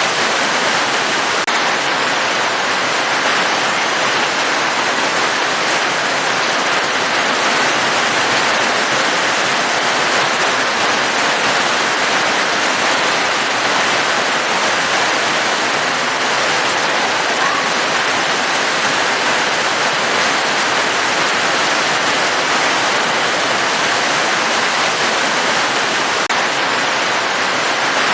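Steady rain: an even hiss of falling water with no breaks.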